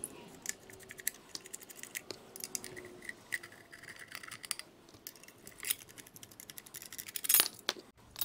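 Small metallic clicks and scrapes of a T-handle hex key working the stator cover bolts loose on a horizontal Minarelli scooter engine, with a louder rattle near the end as the aluminium stator cover is lifted off.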